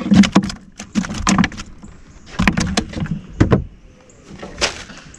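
Hands rummaging in a cooler in a jon boat: plastic lid and gear knocking and rattling in irregular bunches of sharp clicks, the last a single knock near the end.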